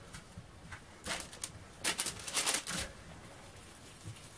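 Wet hands shaping a soft, sticky almond-flour dough ball and setting it down on parchment paper: quick patting and squishing, a short burst about a second in and a longer one around two seconds in.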